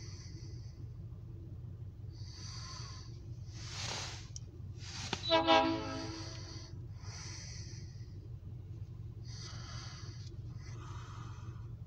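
A diesel locomotive's air horn sounds one short blast of about a second, over a steady low rumble.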